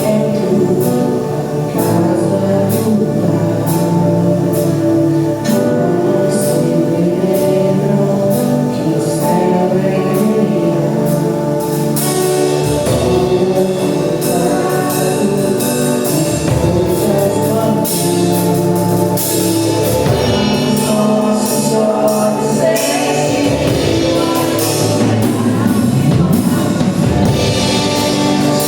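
Gospel worship music: voices singing together over a band, with a steady beat of percussion hits.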